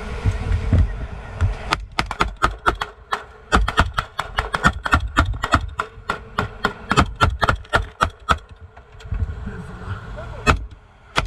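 Sustained gunfire: a long string of sharp shots at about three or four a second, fired at swimmers in the water. After a pause, two more single shots come near the end.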